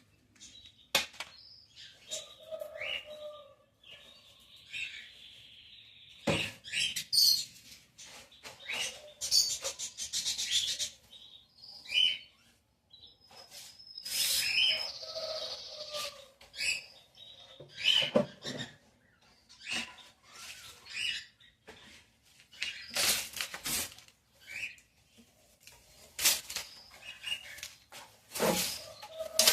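Small birds chirping and calling in many short notes, some held as brief whistles, with frequent sharp knocks and clatter mixed in.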